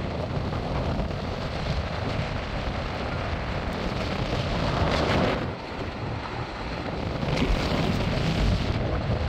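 Wind buffeting the microphone over a constant rushing noise, with a louder rush about five seconds in and another swelling from about seven to nine seconds.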